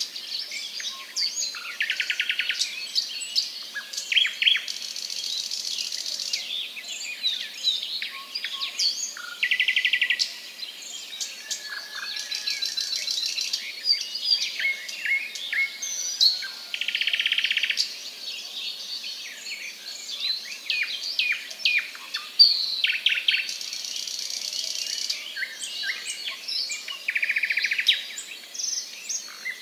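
Many small birds chirping, with short rapid trills repeating every few seconds. A high buzz starts and stops three times.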